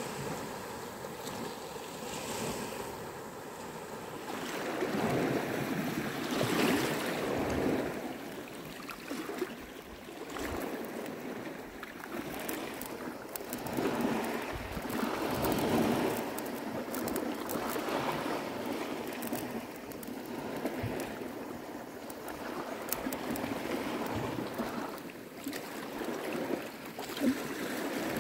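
Small sea waves washing onto a rocky, pebbly shore, rising and falling every few seconds, with some wind.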